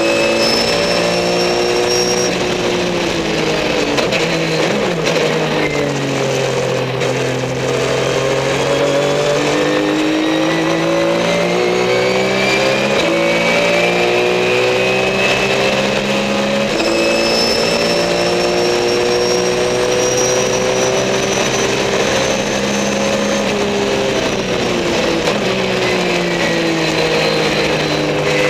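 Race car engine heard from inside the cabin while lapping a circuit. Its pitch climbs steadily on the straight, drops and climbs again, and falls away near the end going into a corner, with a thin high whine running above it.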